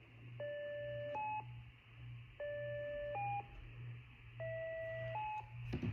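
Fire dispatch paging tones over a radio: three tone pairs about two seconds apart, each a steady lower tone of under a second stepping up to a short higher tone, with the third pair at different pitches, over a steady low hum.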